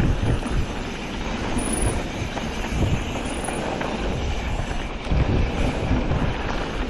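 Mountain bike riding fast down a dirt trail: tyres rolling and the bike rattling over bumps and berms, with wind rushing over the camera's microphone.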